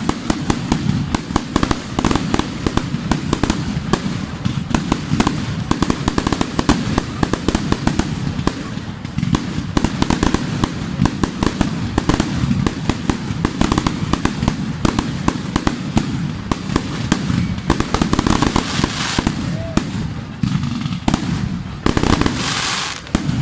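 A fireworks display going off in rapid succession: a dense, continuous string of sharp bangs and crackles, with voices of onlookers underneath.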